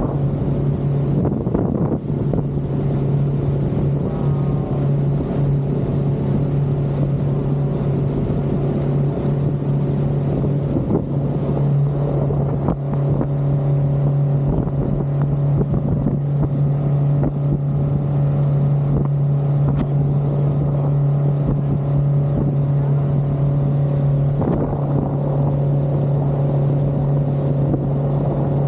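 Outboard motor of an inflatable boat running steadily at speed, a constant low drone, with the rush of wake water and wind over it.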